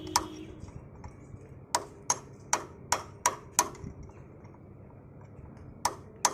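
Hammer blows on metal, sharp separate strikes with a short ring: one at the start, a run of six about one a third of a second apart from roughly two to four seconds in, and two more near the end.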